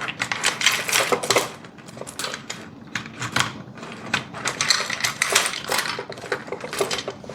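S-Wave curtain gliders and carriers clicking and rattling against each other and the curtain track as they are pushed in along it, in a quick, irregular run of small clicks.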